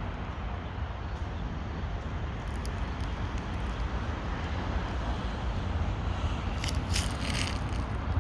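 Steady outdoor background rumble, with a few short crackles about seven seconds in.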